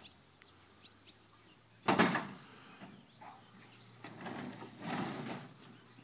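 Stuck metal garage door being forced open from inside: one sharp, loud bang against the door about two seconds in, then a longer rattle as the door is shoved up off the ground.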